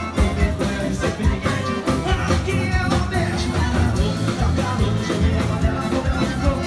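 A live band playing a song with a man singing into a microphone, loud and continuous with a steady beat.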